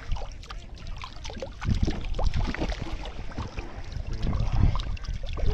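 Water splashing and sloshing, irregular and choppy, as a large fish thrashes at the surface in shallow water against a bamboo polo fish trap.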